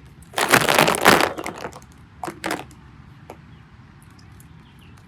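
Slime being squeezed and worked by hand, giving a dense crunchy crackling that lasts about a second, followed by a few short sharp cracks.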